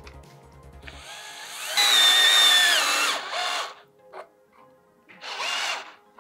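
Cordless drill driving a stainless steel Cable Bullet cable-rail tensioner into a pre-drilled hole in a wood post. The motor whines up to speed, runs under load for over a second and winds down, then gives a short spin, a click and another brief burst near the end.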